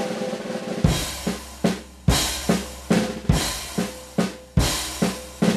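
Music: a drum kit playing a steady beat, a heavy kick-drum hit about every second and a quarter with lighter snare hits between, over ringing cymbals.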